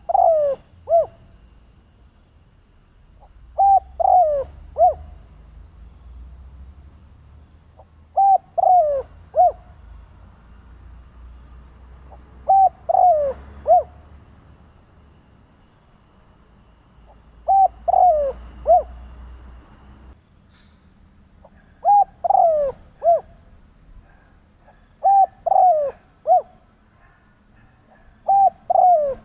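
Spotted dove cooing: a phrase of three or four short, falling coos repeated about every four seconds, eight times over, as a decoy call.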